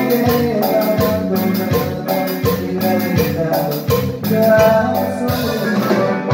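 Live band playing together in rehearsal: electric keyboard, electric bass and drum kit, over a steady, regular drum beat.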